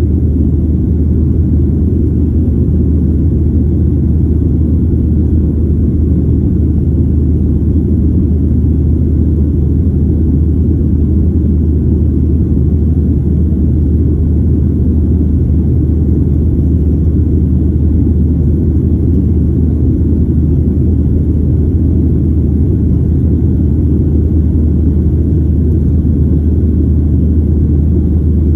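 Steady low rumble of jet airliner cabin noise during the climb after takeoff: the Boeing 737's engines and the rushing airflow, heard from a window seat over the wing, loud and unchanging throughout.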